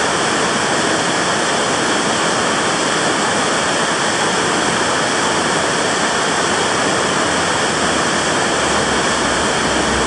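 Waterfall rushing steadily, a loud, even hiss of falling water that does not change.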